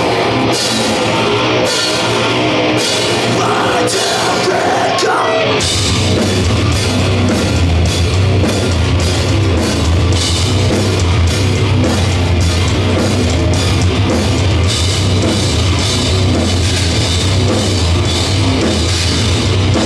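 Heavy metal band playing live, with loud drums and distorted guitars. Regular drum and cymbal hits lead in, and the full band with heavy bass comes crashing in about five seconds in as the song starts.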